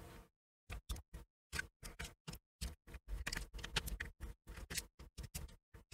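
Small Torx screwdriver backing out screws from the plastic base of an Amazon Echo Dot smart speaker: a run of faint, irregular clicks and ticks as the bit turns and shifts in the screw heads.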